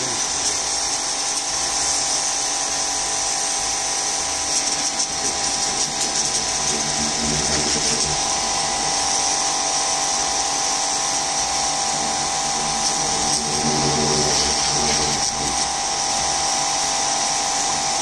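Starq W3 1800W electric pressure washer running steadily with a high motor whine, its water jet hissing as it blasts fungus off ceramic floor tiles.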